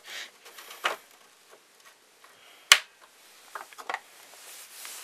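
Small plastic clicks and handling noise as a bulb socket is fitted back into a Subaru Forester SH's rear tail-light housing, with one sharp, loud click about halfway through.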